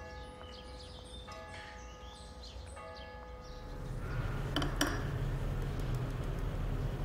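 Church bell ringing three slow strokes about a second and a half apart, each tone fading away. About four seconds in, a louder steady low hum takes over, with a couple of sharp clicks.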